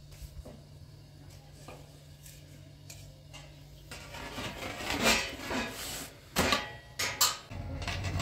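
Kitchen dishes and utensils being handled: a few faint clicks at first, then from about halfway a run of clattering and several sharp knocks. A low steady hum sits under the first half, drops out, and returns near the end.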